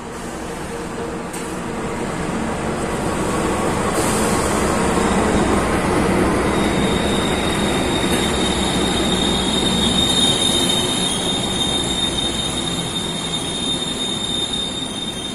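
Passenger train pulling into a station behind a diesel locomotive: engine and rolling coaches grow louder as the train passes, then ease off a little near the end. From about six seconds in, a steady high-pitched brake squeal runs over the rumble as the train slows.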